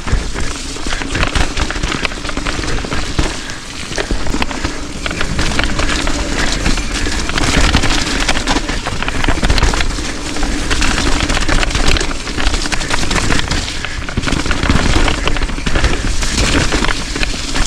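Wind buffeting an action-camera microphone, mixed with steady crackling rattle and knocks from riding fast over a rough, rocky trail.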